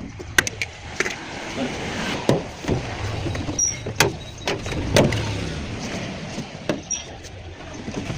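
A series of irregular knocks and clicks, about half a dozen sharp hits spread over several seconds, over a steady background noise.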